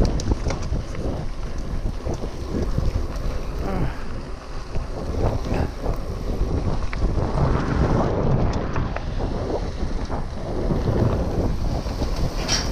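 Wind buffeting the microphone of a handlebar camera on a mountain bike descending a dirt trail, with the bike's tyres rolling over the dirt and frequent rattles and knocks as it goes over bumps.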